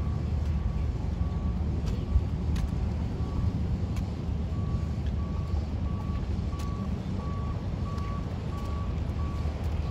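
A reversing alarm beeps steadily, about three short beeps every two seconds, over a constant low engine rumble, with a few sharp clicks or knocks, the loudest about two seconds in.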